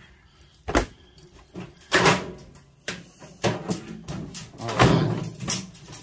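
Thin sheet-metal outer cover of a microwave clanking and scraping as it is pried loose and lifted off, with about half a dozen sharp knocks.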